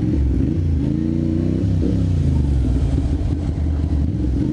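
Ducati Monster M600's air-cooled L-twin engine, heard from the rider's seat, revving up from about half a second in. The revs drop sharply just before two seconds in, and then it runs steadily at low revs.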